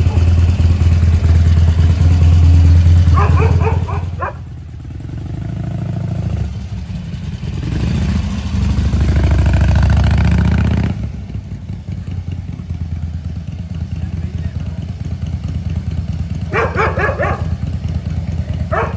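Harley-Davidson Iron 883's air-cooled V-twin engine running under way. It eases off about four seconds in, pulls again, and from about eleven seconds in settles to a quieter, steady low rumble.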